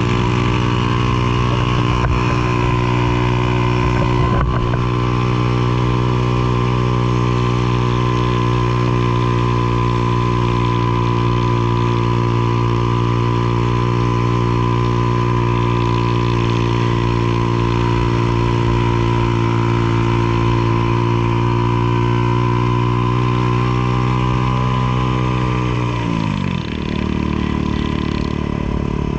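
An engine running at a steady speed, then slowing down with a falling pitch near the end.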